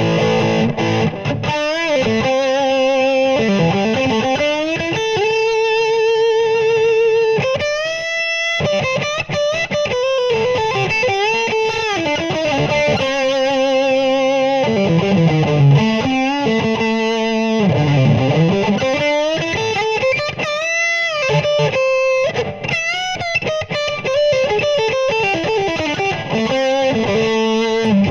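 Oscar Schmidt OE20 Les Paul-style electric guitar with humbucking pickups, played through a VOX VT40X amp with an overdriven tone: a single-note blues-rock lead with string bends and wide vibrato on held notes.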